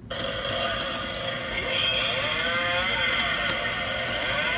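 Gemmy Leatherface animatronic prop activating: its built-in speaker plays a recorded chainsaw engine sound that starts suddenly and rises and falls in pitch as it revs.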